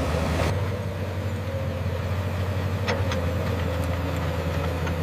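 Heavy construction machine's diesel engine running steadily, with two short sharp clicks about three seconds in.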